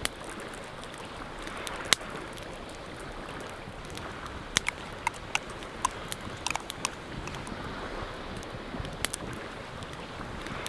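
A metal utensil clicking and scraping against an enamel mug as berries are mashed in it, with sharp clicks coming thickest in the middle, over steady wind noise.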